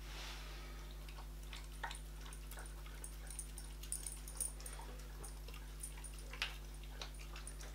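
A dog eating wet food from a bowl: soft, scattered licking and chewing clicks, over a faint steady hum.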